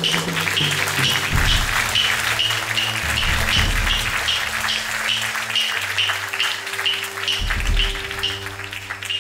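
Audience applauding over music that holds low sustained notes and a steady pulse of short high notes, about three a second. Both fade near the end.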